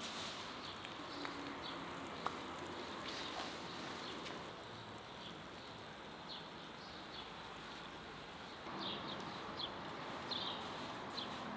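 Quiet steady background hiss with a few faint, short, high chirps and small clicks.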